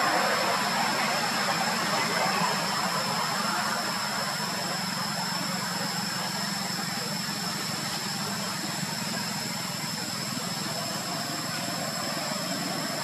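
Steady background hum with a constant thin high-pitched whine above it, engine-like and unbroken, with no distinct calls.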